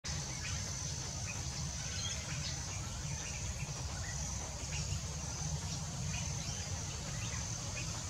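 Outdoor ambience: a steady, high-pitched insect drone over a low rumble, with faint short bird chirps scattered through.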